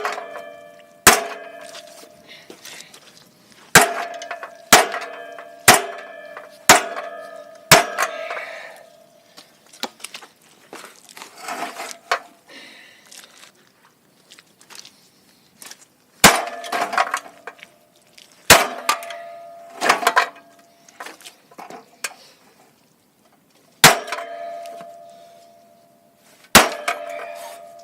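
Hammer striking the bent steel frame of a Honda EM3800SX generator, each blow a loud clang with a ringing metal tone. There is a run of about six strikes roughly a second apart, a lull in the middle with softer scraping, then scattered blows again. The blows are only caving the metal in rather than straightening it.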